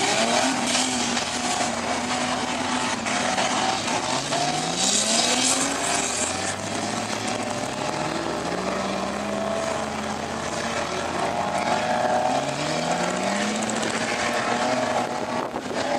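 4x4 car engine revving hard, its pitch climbing again and again and dropping back between climbs, as in driving on sand dunes. A brief hiss comes about five seconds in.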